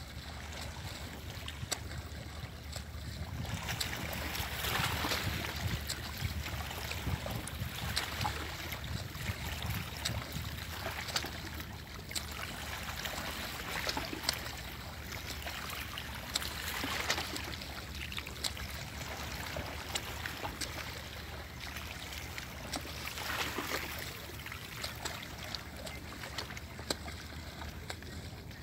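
A boat's motor running low and steady at slow speed, with water washing along the hull in hissing surges every three seconds or so.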